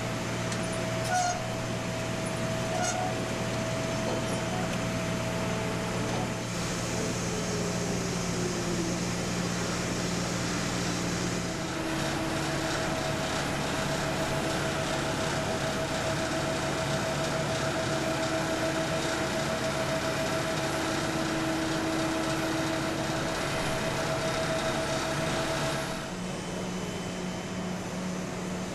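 Steady machine drone with a constant low hum, changing in character suddenly about twelve seconds in and again near the end. A few short high chirps come in the first three seconds.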